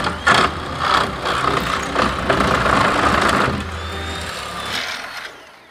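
Corded electric power saw cutting into a wooden deck railing: a loud, rough cutting noise for about five seconds that dies away near the end.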